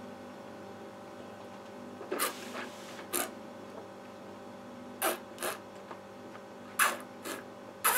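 Quiet mouth and breath sounds of a person tasting wine: a sip drawn in with air about two seconds in, then several brief smacks and breaths. A steady low hum runs underneath.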